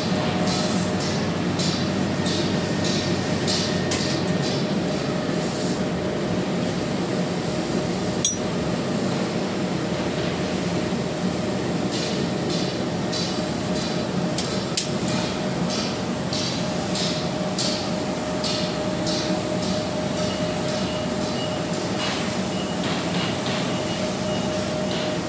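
CNC fiber laser cutting machine cutting sheet steel: a steady machine hum with a constant mid-pitched tone, overlaid by runs of short sharp ticks about twice a second, one run in the first few seconds and another from about halfway through until near the end.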